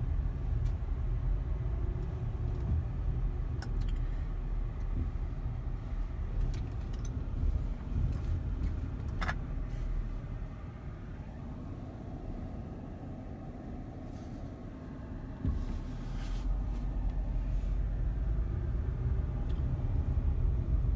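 Low, steady rumble of a car driving slowly, heard from inside the cabin: engine and tyre noise, quieter for a few seconds in the middle and picking up again after that.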